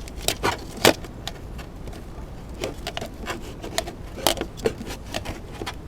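Scattered light clicks and clinks of small hard objects being handled, as a multimeter and its test leads are picked up and readied.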